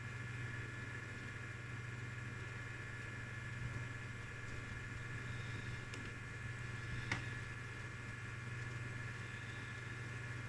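Steady low mechanical hum with a faint high whine over it, and a small click about seven seconds in.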